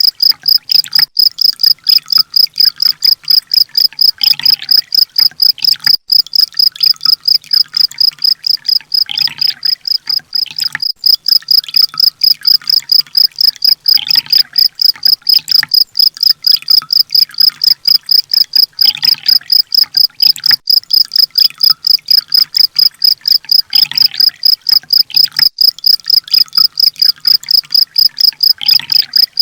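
Recorded sunbird-type songbird calls played as a bird-training track: a rapid, even run of high-pitched chirps, several a second, that never stops. About every five seconds a lower sweeping call joins in.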